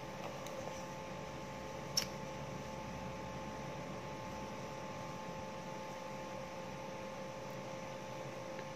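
Steady electrical hum over a faint even hiss, with one sharp click about two seconds in.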